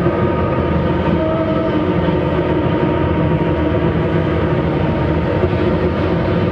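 Live experimental band playing a dense, steady drone: a thick wall of noise with several held tones layered over it, unbroken and without a beat.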